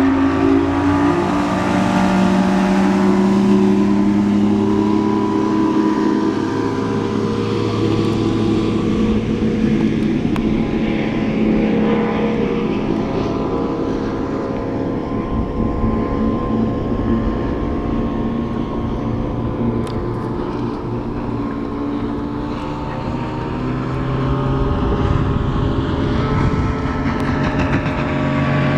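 A 2004 Nitro NX882 bass boat's outboard motor opens up hard, then runs at high speed across the water. The engine note rises quickly at the start, holds fairly steady, drifts slowly lower and shifts again near the end as the boat passes.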